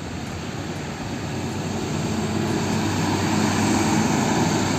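A steady engine-like drone that slowly grows louder over a few seconds.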